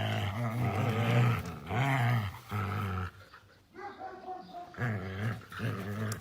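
Dog making a run of drawn-out growling vocalisations that rise and fall in pitch, each about half a second to a second long with short breaks between them. The later ones are quieter.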